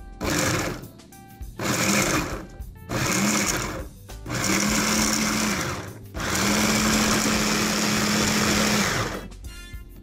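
Electric mini food chopper run in five pulses, chopping onion: motor whir and blades hitting the pieces. The pulses grow longer, the last lasting about three seconds.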